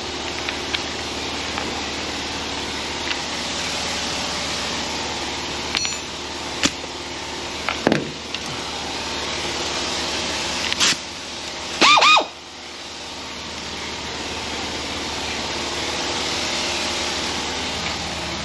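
Steady whooshing background noise, with a few sharp metallic tool clicks and a short whirring burst from a power tool about twelve seconds in, its pitch rising and then falling as the motor spins up and stops.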